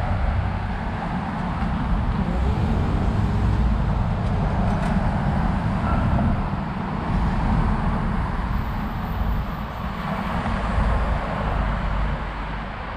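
City street traffic: a steady rumble of passing cars, swelling and easing as vehicles go by.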